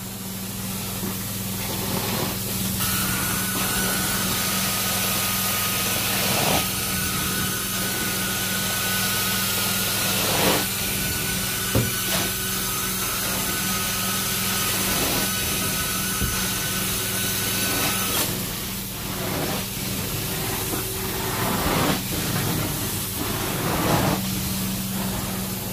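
Carpet extraction wand working over carpet: the extractor's vacuum runs with a steady hum and suction hiss as the wand is pulled across the pile, with occasional knocks from the wand head. From about three seconds in until about eighteen seconds the hiss is louder, with a thin whistle over it.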